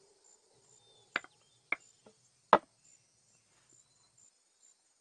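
A few hard footsteps on a wooden floor, sharp knocks about half a second apart, the last one the loudest, over faint steady cricket chirping.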